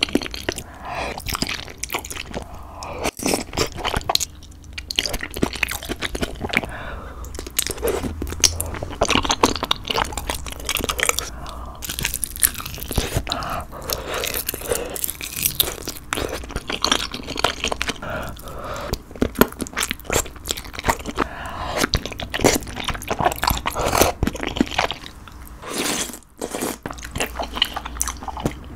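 Close-miked eating: chewing and biting on braised spicy chicken and glass noodles, a dense, irregular run of small mouth clicks and smacks.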